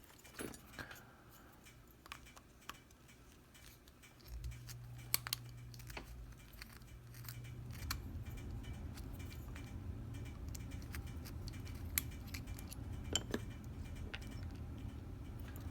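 Small metal clicks and taps of lock tools and lock parts being handled, scattered and faint, with a low steady hum that starts about four seconds in.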